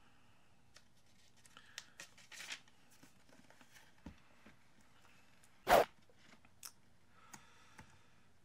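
Quiet room with faint scattered rustles and small clicks from a paper book being handled, and one short, sharp rustle a little past halfway that is the loudest sound.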